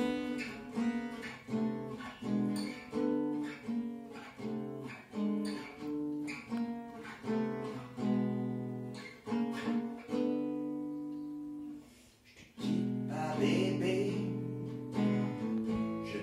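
Acoustic guitar played solo as a blues intro: picked notes and bass lines that ring and decay in a steady pattern. The playing drops away briefly about twelve seconds in, then returns with fuller chords.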